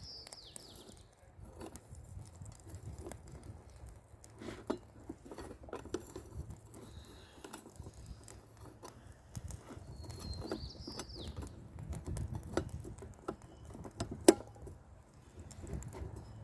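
Wind buffeting the microphone as a steady low rumble, with scattered small clicks and taps and one sharp click near the end. A bird gives a short falling chirp twice, at the start and again about ten seconds later.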